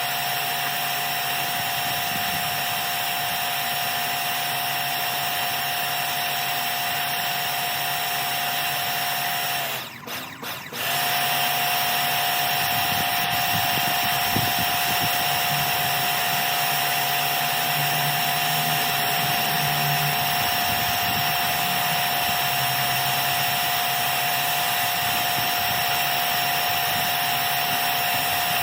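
Pressure washer running with a steady whine and the hiss of its spray. It cuts out for about a second near the middle, as the trigger is let go, then starts again.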